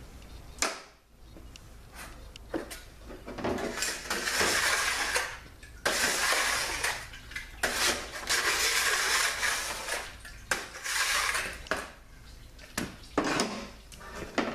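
Wiping spilled transmission fluid off a steel workbench with rags, in repeated rubbing strokes of a second or two each, with sharp clinks and knocks of metal transmission parts being moved on the bench.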